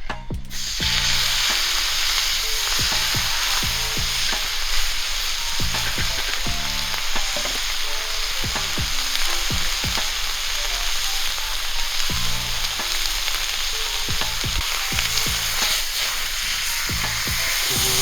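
Steak sizzling loudly in a hot pan, with a steady hiss and scattered spitting crackles. The sizzle starts suddenly about half a second in, as if the meat has just been laid on the hot metal.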